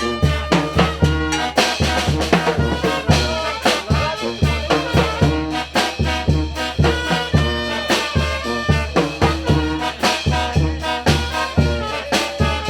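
A Mexican banda, a brass band, playing: trumpets and trombones carry the melody over low bass notes and a steady drum beat.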